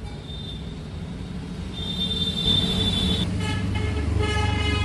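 Road traffic: a vehicle's engine rumbles past, and in the second half a horn honks in several short toots.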